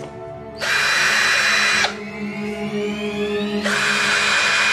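Cordless drill spinning a screw in a wooden board, in two short runs of about a second each.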